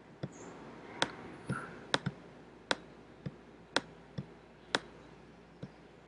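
About ten short, sharp clicks at an uneven pace of one or two a second, made while hand-writing strokes onto a slide with an on-screen pen tool on a computer, over faint room tone.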